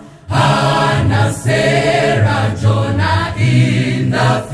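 A choir singing a Christian gospel song in harmony. The sung phrases are broken by short pauses for breath.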